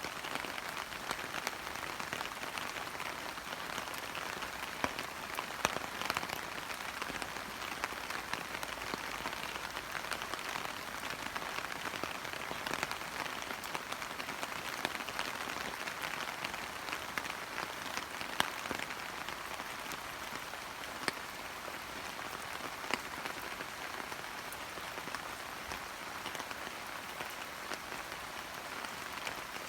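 Steady rain falling on leaves and foliage, a dense patter with many distinct drops hitting close by.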